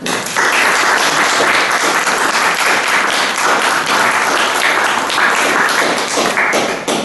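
Audience applauding: dense clapping that starts suddenly, holds steady, and tails off near the end.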